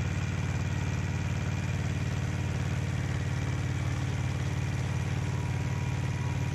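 Kubota compact tractor's diesel engine running at a steady, even note as the tractor works the soil with its rear implement.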